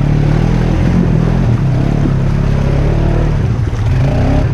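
ATV engine running close by and revving, its pitch rising and falling a little and climbing near the end.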